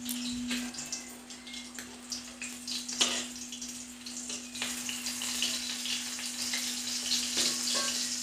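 Fish frying in oil in a wok (kadai) on a gas stove: a steady sizzle that gets stronger about halfway through, with a few clicks of the metal spatula against the pan. A steady low hum runs underneath.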